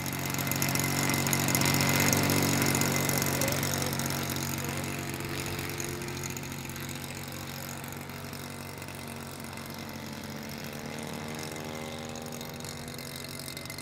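Engine of a large-scale model Fokker Dr.I triplane running steadily at idle as the model taxis out, loudest a couple of seconds in and then growing fainter as it moves away.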